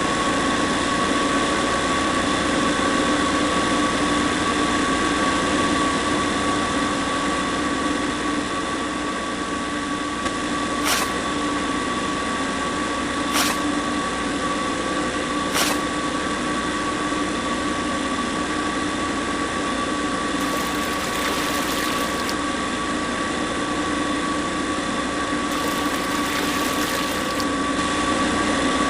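Small electric motor of a miniature DIY concrete mixer running at a steady speed with a constant whine. Three short clicks come around the middle.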